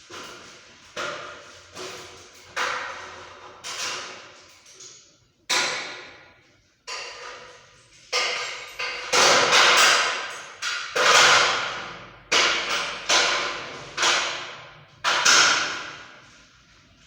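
Hammer blows: a long run of about twenty sharp strikes at an uneven pace, some in quick succession, each ringing briefly before it fades.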